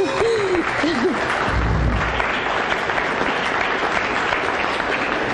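Audience applauding steadily, with a voice heard over the first second.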